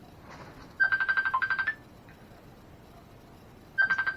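Mobile phone ringtone: two bursts of rapid electronic beeping about three seconds apart, an incoming call.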